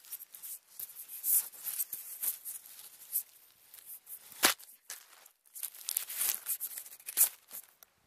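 Vervet monkeys handling the camera: hands and fur scraping and rubbing on the microphone among dry leaves and twigs, making irregular crackling and rustling with many small clicks. A sharp knock comes about four and a half seconds in as the camera is knocked about and tipped over.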